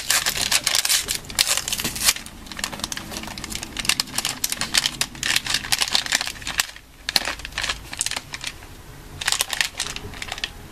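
Plastic candy bag of chili nut M&M's being opened and handled: rapid, irregular crinkling and crackling of the wrapper that comes and goes, easing off briefly about seven seconds in.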